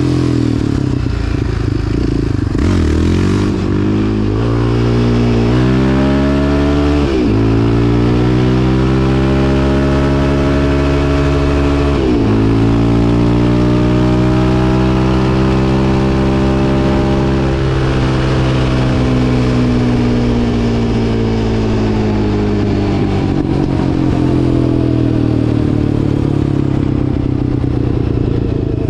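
Yamaha Raptor 700 quad's single-cylinder four-stroke engine accelerating up through the gears, its pitch climbing and dropping at four upshifts in the first twelve seconds. It then pulls to a steady high speed and eases off near the end.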